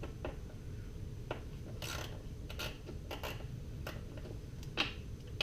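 Hand tools working on the last two cylinder-head bolts of a Yamaha 9.9 four-stroke outboard: a few scattered, irregular clicks and scrapes of metal over a faint steady background.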